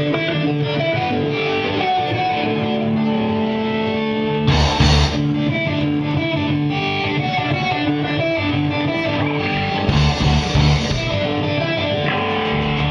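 Rock band playing: electric guitars ringing out held notes over bass guitar and drums. There is a loud crash about four and a half seconds in, and the drums get busier near the end.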